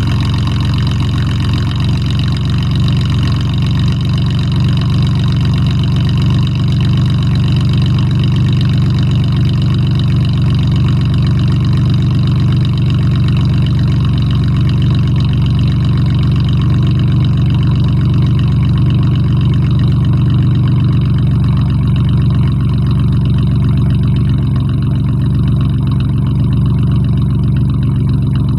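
Ford Mustang V6 with dual exhausts and an exhaust leak idling steadily during its cold-start warm-up.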